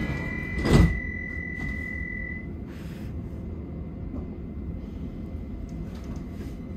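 Stockholm metro train running, a steady rumble of wheels on rail. A brief loud rush of noise comes about a second in, and a high steady whine stops at about two and a half seconds.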